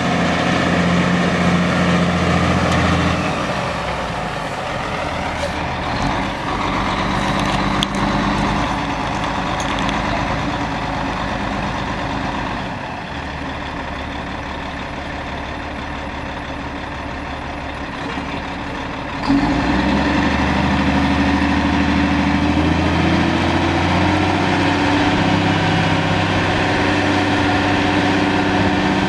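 Caterpillar 3176 inline-six turbo diesel of a 1989 Peterbilt 379 dump truck running, its note shifting several times. About two-thirds of the way through it steps up suddenly, louder and higher in pitch.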